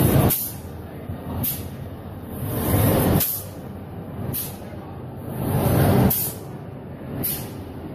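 SQJ-2000 paper tube recutting machine running its cutting cycle about every three seconds: each cut is a noise that swells for about a second and then stops sharply with a short hiss. A smaller hiss comes midway between cuts.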